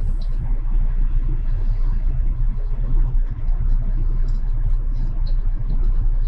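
Steady low rumble, with a few faint ticks from a cable connector being handled and worked loose.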